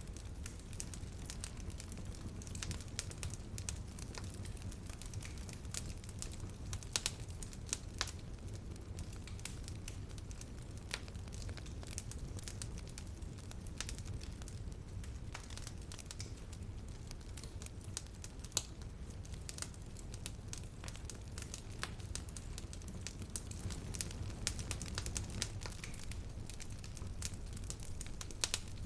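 Fire in a fireplace crackling: irregular sharp pops and snaps over a steady low rumble of the flames.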